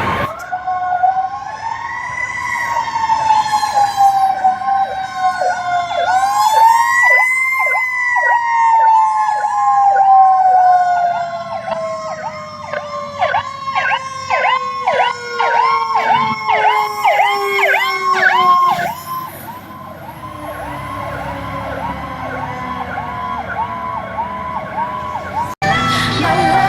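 Fire truck sirens running code 3: a wailing tone that rises twice and then slowly winds down in pitch, overlaid from about a quarter of the way in by a fast yelp of two to three sweeps a second. Later the yelp gives way to a quicker, fainter warble, and the sound breaks off abruptly near the end.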